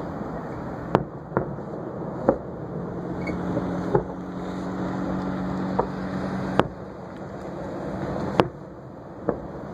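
Aerial fireworks shells bursting: about eight sharp bangs at uneven intervals, the loudest about a second, two seconds, six and a half seconds and eight and a half seconds in. They sound over a steady background rumble, and a low steady hum runs for a few seconds in the middle.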